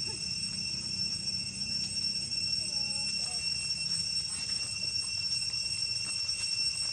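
A steady, high-pitched insect drone of several constant tones, with faint rustles of dry leaves in the second half.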